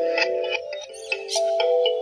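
Background music: held notes that change every half second or so, with short, high, chiming notes laid over them.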